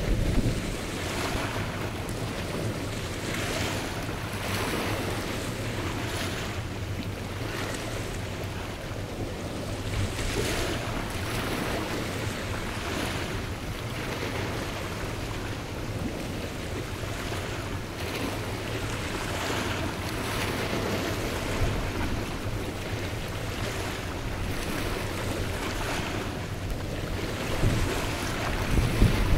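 Wind rushing over the microphone and water washing in irregular swells every couple of seconds, over a steady low drone from the engine of a passing small cargo ship.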